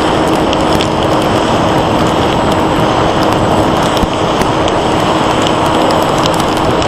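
Loud, steady wind rush over a Bixler 1.1 FPV plane's onboard camera in flight through a storm, with a steady hum from its electric motor and propeller. Scattered ticks run through it, like rain hitting the airframe.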